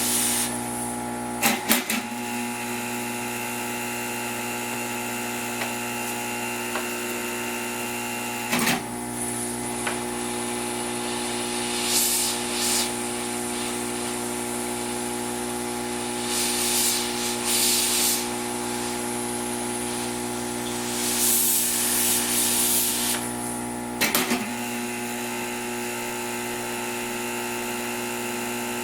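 Small electric motor humming steadily, with a few sharp clicks and several short bursts of high hiss.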